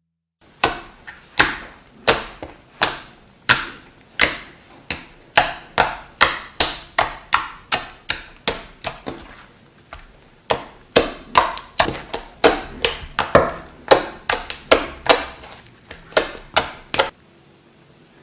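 Soft slime being pressed and poked by hand, a sharp clicking pop at each press, about two a second and a little quicker in the second half, stopping about a second before the end.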